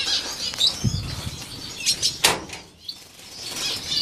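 Small aviary finches chirping and twittering. A dull low thump comes about a second in, and a single sharp knock a little after two seconds.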